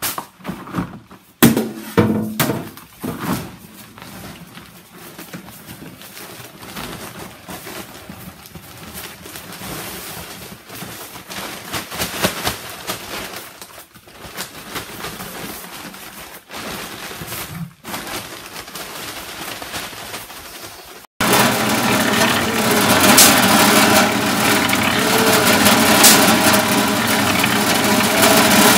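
A few sharp knocks as a paper bag of Portland cement is opened with a shovel, then the soft, uneven rush of the dry powder pouring into a plastic tub. About two-thirds of the way through, the sound changes suddenly to a drum-type concrete mixer running steadily and louder.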